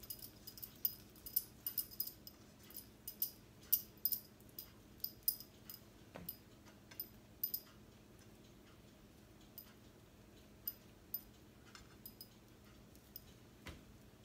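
Light, irregular clicks and taps from hands turning beef slices on a ceramic plate to coat them in cornstarch, coming thick and fast at first and sparser in the second half, over a faint steady hum.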